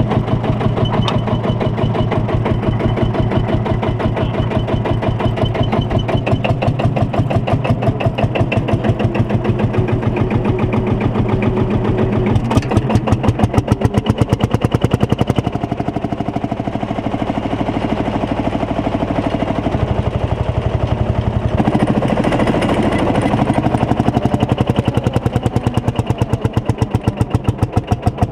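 1949 Field Marshall Series 2 single-cylinder two-stroke diesel engine chugging as the tractor drives along, a steady train of evenly spaced exhaust beats. It gets louder about halfway through, softens for a few seconds, then picks up again.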